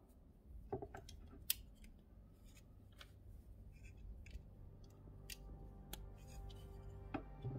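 Plastic Lego pieces clicking and knocking as hands handle a small brick-built car and press parts onto it: a scattering of small, separate clicks, the sharpest about a second and a half in.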